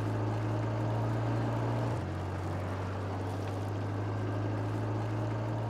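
Passenger minibus engine running with a steady low hum, heard from inside the cabin; the engine note steps down slightly about two seconds in.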